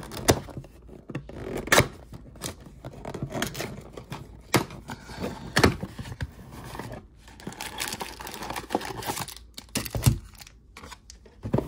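A cardboard Panini Prizm trading-card mega box being torn open and handled: the flap tears, the cardboard scrapes, and there are scattered knocks as the box is tipped and set down. Foil-wrapped card packs rustle as they are slid out and stacked on the table.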